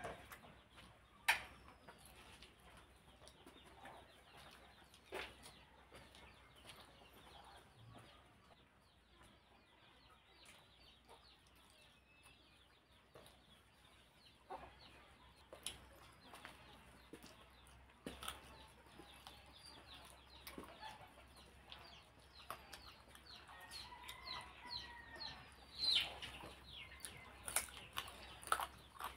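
Close-up eating sounds from a hand-fed meal of rice and chicken curry: wet chewing, lip smacks and sharp mouth clicks, sparse at first and coming thick and fast near the end. A brief pitched call sounds in the background shortly before the clicks crowd in.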